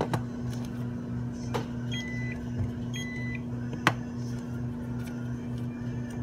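Checkout register's barcode scanner beeping twice, about a second apart, as coupons are scanned in, over a steady low hum. A few sharp clicks come through, the loudest about four seconds in.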